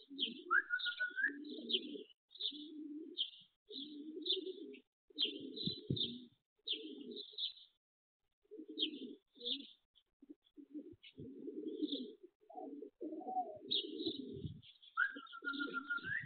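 Pigeons cooing again and again in short bouts, with small birds chirping in quick high notes throughout and a longer, higher call near the start and again near the end.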